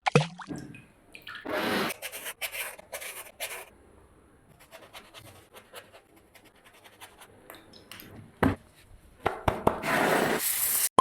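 Food being handled and worked at close range: rubbing and scraping strokes with small clicks and knocks. A few strokes come in the first few seconds, then a quiet stretch of light clicks, and a longer, louder scrape near the end.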